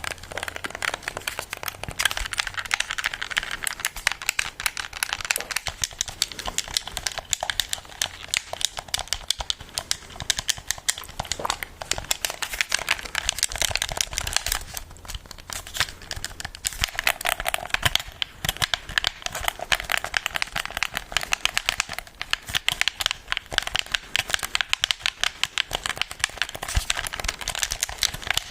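Dense, continuous crinkling and crackling made by hand for ASMR, with a brief lull about halfway through.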